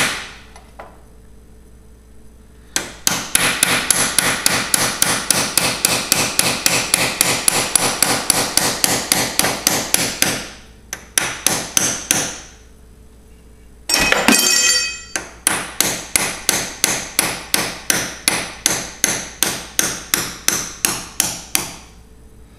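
A steel hammer beats rapidly on a pin punch, about four sharp metallic blows a second, in long runs with short pauses. The hammering is driving a roll pin out of a John Deere 317 garden tractor's drive shaft. About fourteen seconds in there is one louder, ringing metallic clank.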